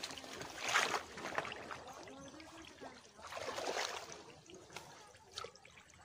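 River water splashing and trickling as someone wades waist-deep and handles a fishing net, with two louder swishes about a second in and at around three and a half seconds.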